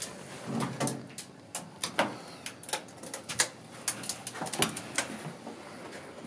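Irregular clicks and clatter of a vintage gated Otis elevator's car gate and hall door being opened, with footsteps stepping out.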